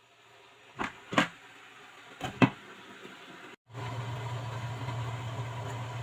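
Four short knocks, the last two close together, then after a break a steady low electrical hum.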